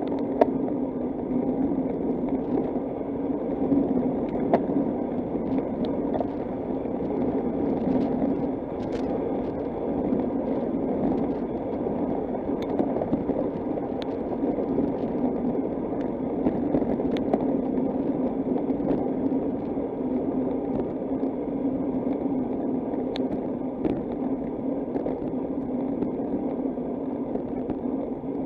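Steady rushing noise of a bicycle ride on the road, wind and tyres, with scattered small clicks and rattles.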